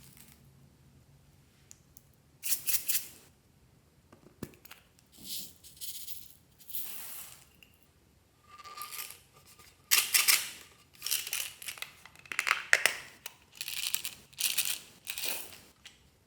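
Slime being worked by hand, heard as irregular short bursts of crackly noise that come thicker and louder in the second half.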